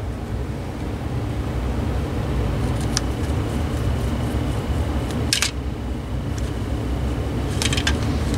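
Small sharp clicks and taps of a screwdriver and the plastic parts of a cordless phone handset being handled: one about three seconds in, a louder one past the middle and a quick cluster near the end. Under them runs a steady low background rumble, with a faint high whine through the middle.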